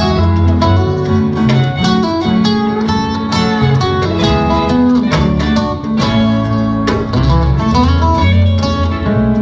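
Live band playing rock music, with a guitar to the fore over a steady bass line and drums.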